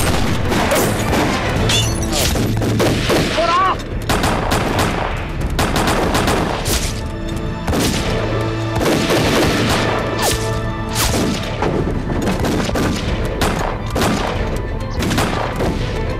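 Battle-scene gunfire: many irregular gunshots over a dramatic music score, with shouting in the first few seconds.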